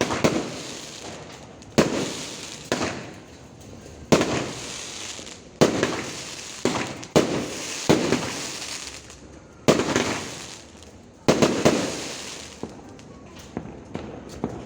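Fireworks going off: about a dozen sharp bangs at irregular intervals of roughly one to two seconds, each trailing off as it fades, with two bangs close together a little before the end.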